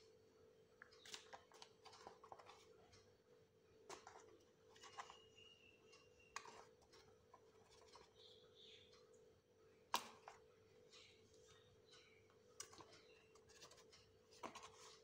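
Near silence with faint, scattered clicks and taps of a measuring spoon scooping cocoa powder from its packet and tipping it into the pan, the sharpest tap about ten seconds in, over a faint steady hum.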